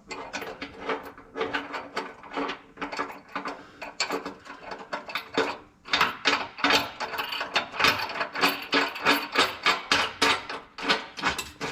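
Hand socket ratchet clicking in quick runs as bolts are turned to fasten a muffler skid plate. The clicks get faster and louder about halfway through.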